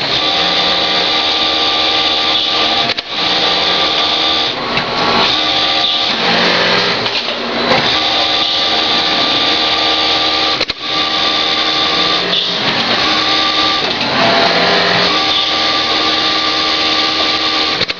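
Flatbed interlock sewing machine running at speed with a steady whine, breaking off briefly with a sharp click about three seconds in and again about eleven seconds in.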